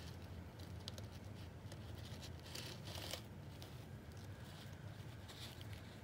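Faint rustling and scratching of fleece bedding as a pet hedgehog pushes and burrows into it, with a denser patch of rustling about two and a half seconds in, over a steady low hum.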